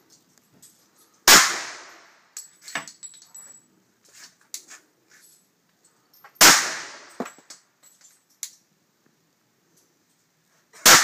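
Three single shots from a Glock 30S .45 ACP pistol, about five seconds apart, each ringing out briefly, with faint clicks between them.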